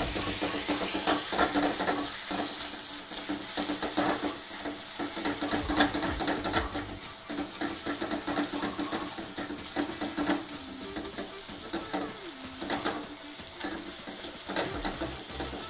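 Sliced onions with ginger-garlic paste sizzling in oil in a non-stick wok, stirred with a wooden spatula in quick, irregular scraping strokes, over a steady low hum.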